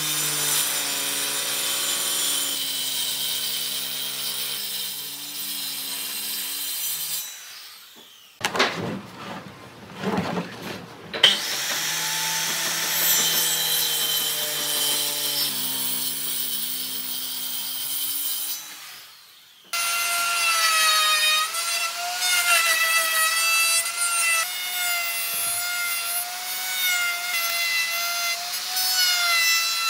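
Maktec circular saw cutting through a thick solid-wood tabletop, its motor whine steady under load, twice for about seven seconds each. Between the two cuts there are a few seconds of rough scraping noise with a sharp knock. Then a Dong Cheng plunge router cuts into the wood, its whine wavering in pitch as it is fed.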